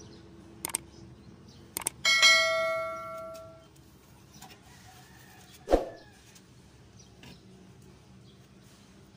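A piece of metal struck once, ringing with a bell-like tone that dies away over about a second and a half. Two light clicks come before it, and a single dull knock follows a few seconds later.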